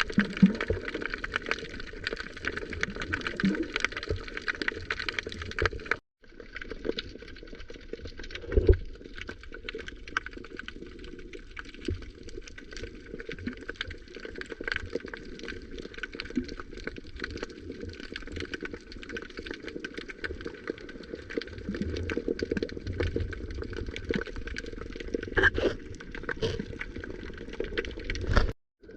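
Sea water sloshing and gurgling close to the microphone, with scattered splashes, cut off abruptly twice for a moment.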